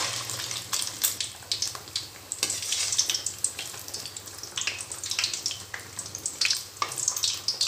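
Breadcrumb- and egg-coated mutton kabab balls deep-frying in hot oil in a steel kadai: a steady crackling sizzle with many sharp pops.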